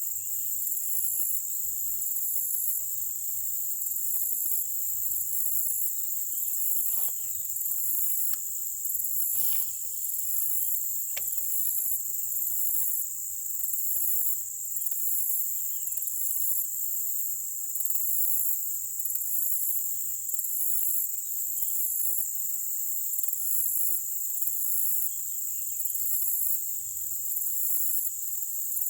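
Outdoor insect chorus: a steady high-pitched buzz, with an even higher trill pulsing about once a second. A few faint clicks sound near the middle.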